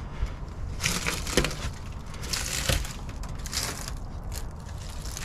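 Dry leaf litter and twigs crunching and snapping underfoot on a boat deck, in three short crunchy bursts about a second apart.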